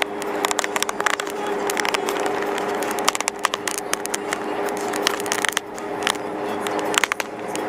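Car cabin noise while driving on a highway: a steady drone with many short crackles and clicks scattered through it.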